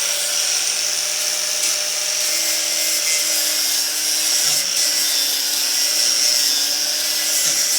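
4½-inch angle grinder fitted with a 50-grit sanding disc, running with a steady high whine as it sands down and rounds off a sharp edge of a wooden table. The whine dips slightly in pitch a couple of times as the disc bears on the wood.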